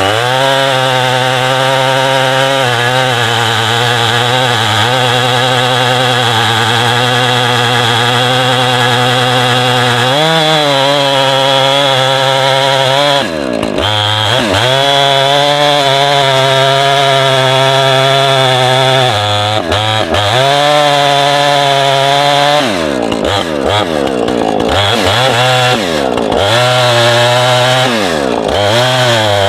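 Gas-powered saw engine running at high speed while milling a log, its pitch dipping and recovering several times, more often near the end.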